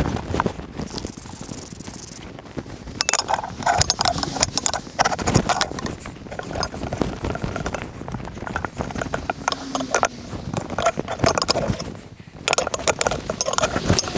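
Manual tyre changer at work: the steel tyre bar knocks, clanks and scrapes against the changer and wheel rim as the bead of a new car tyre is levered over the rim, with irregular rattles and rubbing of rubber on metal.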